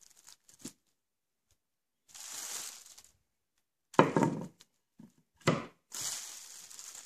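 Unboxing handling noise: packaging rustles for about a second, then two sharp thunks as something is knocked or set down, then a longer rustle.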